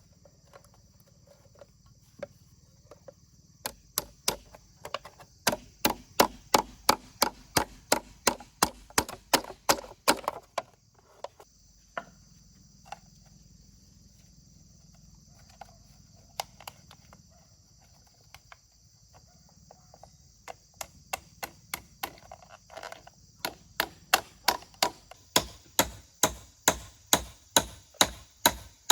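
A hand tool striking wood in rapid, regular blows, about two to three a second, in two long runs with a stretch of scattered knocks between them. A steady high hiss runs underneath.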